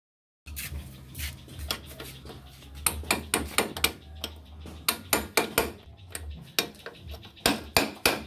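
Bearing races being hammered into a Bajaj Chetak scooter's front wheel hub: a string of sharp metal-on-metal strikes, irregular, two to four a second, heavier from about three seconds in.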